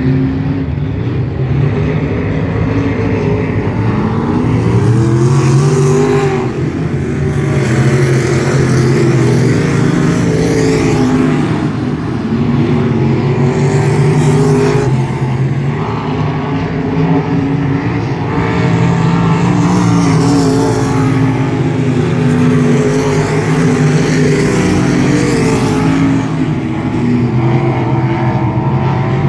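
Winged dirt-track sprint car engine running hard at practice speed around the oval. Its loud, continuous note rises and falls every few seconds as the throttle goes on and off between the straights and the turns.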